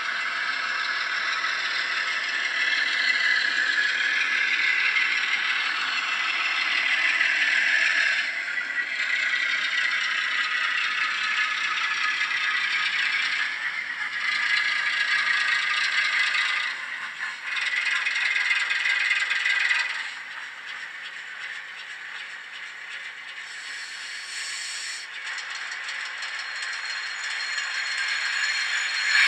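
Model diesel shunter running with its ESU LokSound decoder playing a Class 08 engine sound through its small speaker, mixed with the rattle and scrape of the model and its wagons running over the track. The sound gets quieter about two-thirds of the way through as the locomotive draws to a stop.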